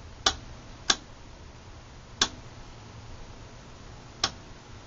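Rotary step-switch detents of the Leader LBO-508A oscilloscope's VOLTS/CM selector clicking as the knob is turned a step at a time: four sharp clicks at uneven intervals, over a faint steady low hum.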